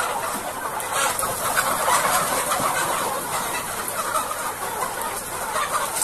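A large flock of penned chickens clucking and chattering continuously, many birds calling over one another.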